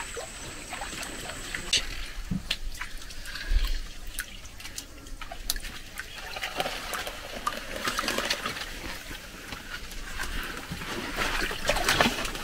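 Swamp water sloshing and trickling, with scattered light splashes, clicks and the rustle of leaves as someone pushes through dense swamp plants.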